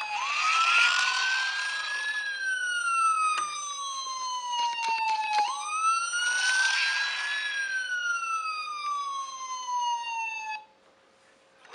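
Electronic toy siren sounding in two slow cycles, its pitch rising, then sliding down over several seconds each time, with a few sharp clicks along the way. It cuts off suddenly near the end.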